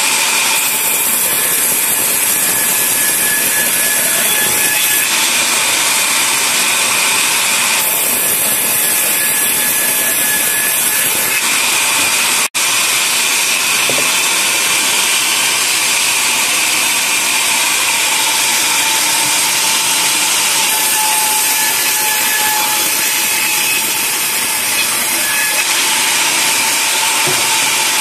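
Sawmill band saw cutting lengthwise through a teak log, a loud, steady sawing noise that briefly cuts out about halfway through.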